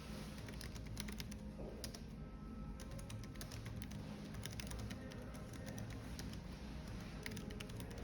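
Typing on a computer keyboard: a quick, uneven run of key clicks throughout, over a steady low café background hum.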